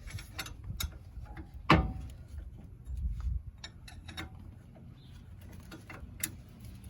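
Hand ratchet clicking in uneven strokes as the upper control arm's ball-joint nut is backed off the knuckle, with a sharp metallic knock about two seconds in and another near the end.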